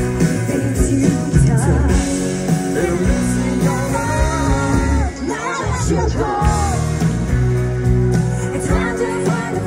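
Live pop ballad from a band concert: a voice singing a gliding melody over drums, bass and keyboards, recorded from within the crowd.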